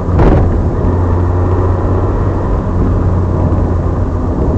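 Alpine A310's 2.7-litre V6 engine running under load at fairly steady revs as the rally car drives a stage. There is a brief sharp noise about a quarter second in.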